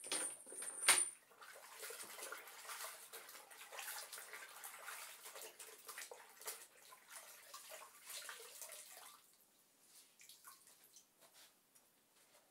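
Microfiber cleaning cloth being swished and wrung out in a container of water: a couple of sharp knocks in the first second, then about eight seconds of splashing and trickling water, ending in a few drips.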